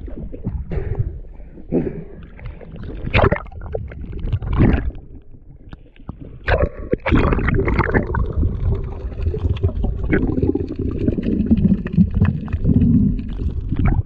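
Sea water splashing and gurgling around a spearfisher's camera at and just below the surface, in irregular bursts at first and then a denser, steadier churning from about six seconds in.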